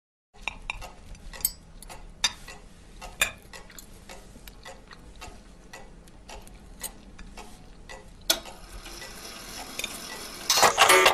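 Knives and forks clinking and scraping on dinner plates, with a wall cuckoo clock ticking. About ten and a half seconds in, a loud rattling clatter lasting under a second.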